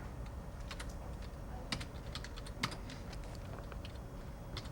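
Typing on a computer keyboard: irregular key clicks with a couple of louder clacks near the middle, over a steady low background hum.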